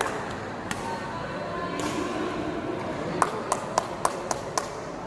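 Sharp taps during junior badminton play: one under a second in, then a quick run of about six ringing taps a quarter-second apart, over steady voices in the hall.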